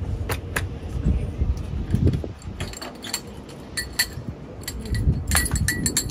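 Metal clinks and clacks from a fuel tanker's hose couplings, valve fittings and caps being handled as a drop hose is hooked up, some with a short metallic ring, over dull thuds. The clinks come thickest near the end.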